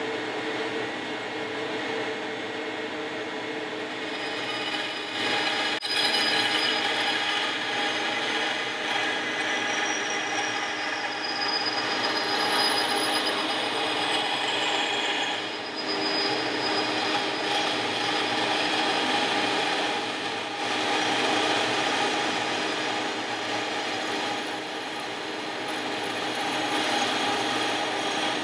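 Benchtop band saw running and its blade cutting lengthwise through an aluminum spar cap bar, a steady whirring, rasping cut that rises and falls a little as the stock is fed. A single sharp click about six seconds in.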